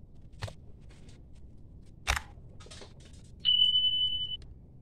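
Subscribe-button sound effect: a faint click about half a second in and a sharp click about two seconds in, then one steady high-pitched beep lasting about a second.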